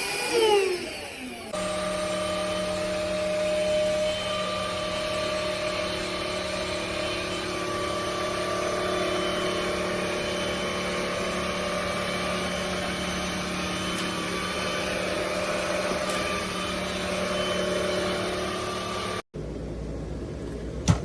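Cordless stick vacuum's motor: a whine falls away over the first second or so, then a steady hum with a clear pitch runs until it cuts off abruptly near the end.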